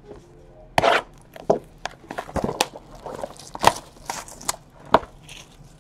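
Cardboard trading-card boxes being handled: a string of light knocks, taps and crinkly scrapes as the boxes are moved and lifted.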